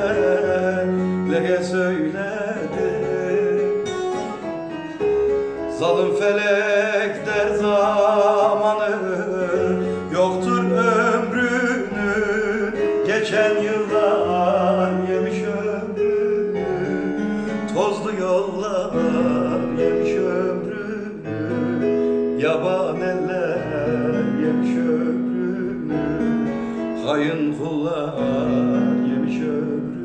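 Live Turkish folk song (türkü): a man's voice sings a slow, ornamented melody without lyrics over a continuous instrumental accompaniment, with wavering vibrato on the held notes.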